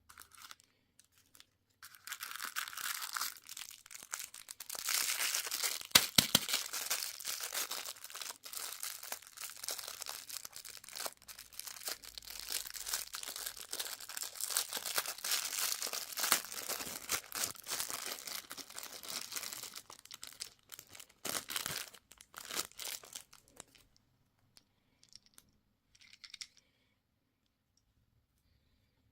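Candy or toy packaging being torn open and crinkled by hand: a dense crackling and rustling that lasts about twenty seconds, with sharp snaps along the way, then a few faint crinkles near the end.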